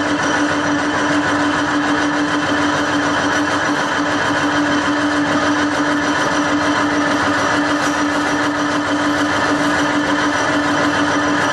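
Electric soap mixer machine running steadily, its motor and stirrer giving a constant hum over mechanical noise.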